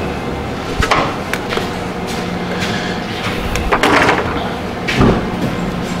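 A few separate knocks and clunks over a faint steady hum.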